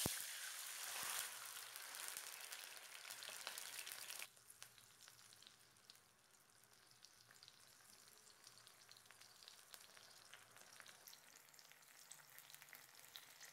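Water just poured into hot oil with mustard seeds and green chillies, sizzling and crackling in a kadai. About four seconds in the sizzle drops away suddenly to a faint crackle.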